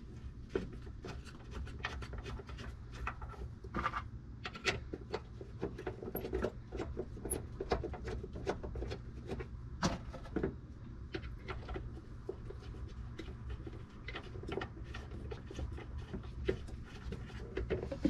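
Small irregular metal clicks and scrapes of an L-shaped key turning the bolts of a tailgate check's mounting plate into a Jeep Wrangler's body, bolts being run in by hand before final tightening. A low steady hum runs underneath.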